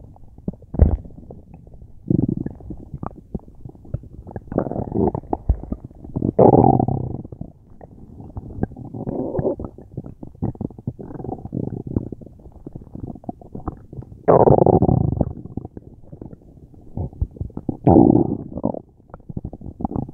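A person's stomach growling and gurgling loudly in irregular bursts. Short gurgles are broken by longer rumbling swells of about a second, the strongest about six seconds in and again near fourteen seconds.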